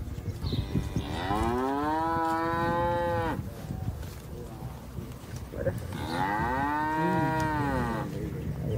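Cow mooing twice: two long, drawn-out moos about three seconds apart, each rising in pitch at the start, holding level and dropping away at the end.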